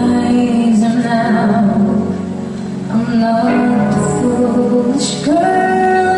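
A band playing with a singer on lead vocals. Near the end the voice slides up into a long held note.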